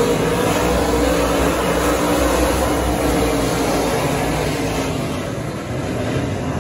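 Several USRA Modified dirt-track race cars' V8 engines running hard together as the pack races past, a loud steady drone that eases a little about five seconds in.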